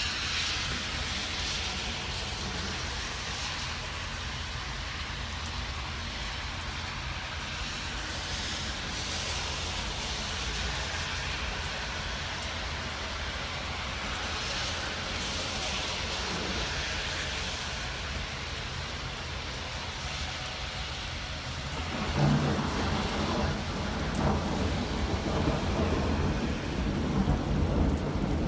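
Steady rain falling on wet pavement, a constant hiss, with a rumble of thunder breaking in loudly about three quarters of the way through and rolling on.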